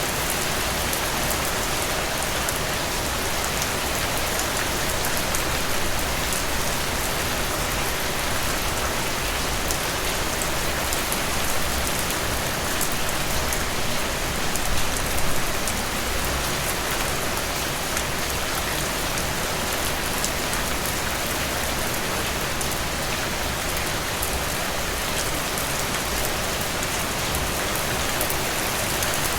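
Steady rain falling on a surface, a dense even hiss of drops with brief slight swells in loudness around the middle.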